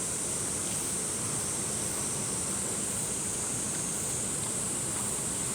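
Mountain stream water rushing steadily, an even hiss without breaks.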